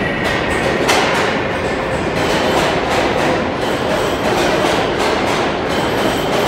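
An R188 subway train pulling into the platform, its wheels clattering over the rail joints in a steady run of clicks. A faint high whine rises near the end.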